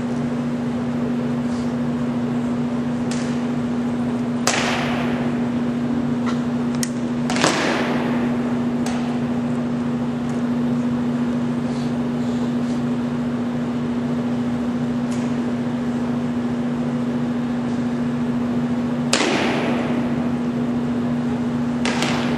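Sharp drill knocks from a cadet flag party with rifles and flags, four loud ones about 4, 7, 19 and 22 seconds in and a few fainter ticks between, each echoing through the large hall. A steady low hum runs underneath.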